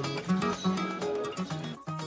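Background music: a plucked acoustic guitar picking out notes, fading.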